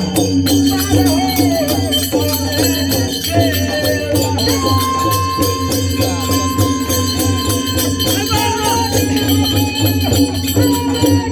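Devotional folk music: a wavering melody over fast, continuous jingling and rattling percussion, with a steady low hum beneath. A single note is held from about four and a half seconds in to about eight seconds.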